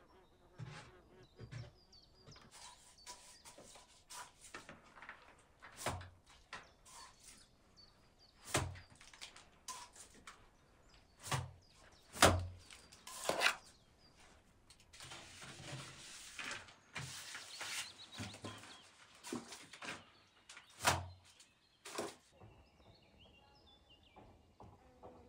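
Scattered knocks and thuds at irregular intervals, the loudest about twelve seconds in, with a stretch of rustling in the middle.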